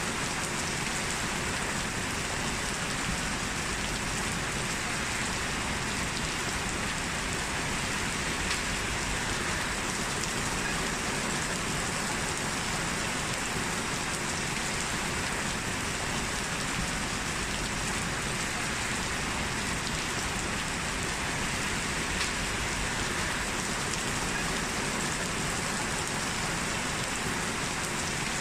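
Steady, heavy rain falling and pattering on surfaces, an even hiss without pauses or thunderclaps.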